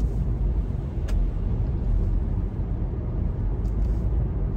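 Steady low road and engine rumble inside the cabin of a moving car, with a single sharp click about a second in.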